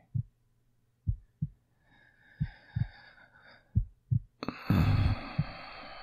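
Slow heartbeat heard close up, a low double thump (lub-dub) about every 1.3 seconds, with soft breathing over it that grows into a long, louder breath about two-thirds of the way through.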